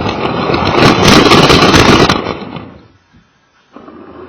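Toy Lego train rattling and clattering along its plastic track, heard close up from a camera riding on it. The clatter is loudest about a second in, then dies away to near silence about three seconds in.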